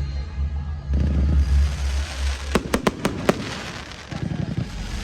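Firework display: a low rumble of booms in the first second, then crackling and a quick run of about five sharp bangs about halfway through.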